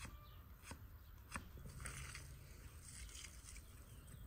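Faint knife strokes slicing through an onion onto a wooden stump: a couple of sharp cuts, then soft rustling of the sliced onion.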